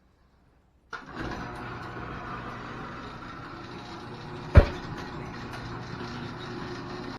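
Vehicle engine running steadily, starting abruptly about a second in, with one sharp loud knock about halfway through.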